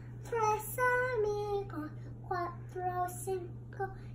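A young girl singing solo without accompaniment, in a string of held notes with short breaks between phrases. A steady low hum runs underneath.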